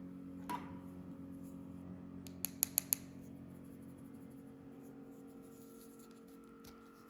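Light scratching and handling sounds from makeup being worked with a small tool, with a click about half a second in and four quick sharp clicks about two and a half seconds in, over faint steady tones.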